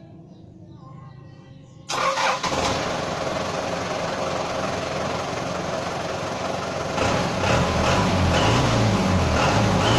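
Toyota 14B four-cylinder diesel engine, 3,661 cc, starts suddenly about two seconds in and runs. In the last few seconds it is revved up and down, and a faint high whistle from a fake turbo whistler rises and falls with the revs.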